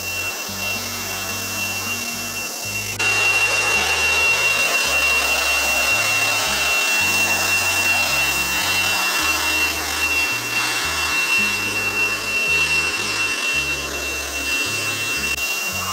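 Small battery-powered leaf blower running steadily, a rush of air with a high motor whine, louder from about three seconds in.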